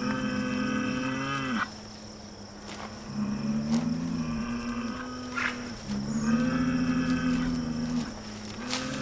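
Spanish fighting bulls lowing: a series of long, drawn-out moos, each lasting one to three seconds with short pauses between them, and a few faint knocks in the gaps.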